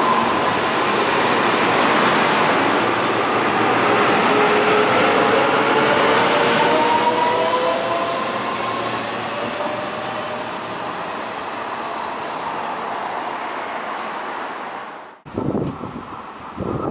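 Taiwan Railways train running past, a steady rumble with whining tones that slowly shift in pitch. About fifteen seconds in the sound cuts off abruptly, and a different train sound begins with uneven thuds.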